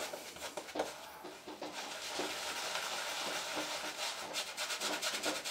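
Shaving brush swirling and rubbing shaving-soap lather over the face and beard: a soft, continuous bristly swishing of the face-lathering stage.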